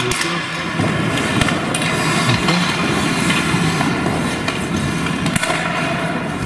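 Ice hockey play in an indoor rink: skate blades scraping the ice, with frequent sharp clacks and knocks from sticks, puck and the boards.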